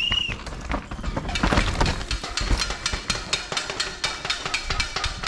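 Rapid, steady metallic clanking, about five or six strikes a second, from a handheld bell or noisemaker being shaken over and over. A louder rush of noise swells up about a second and a half in.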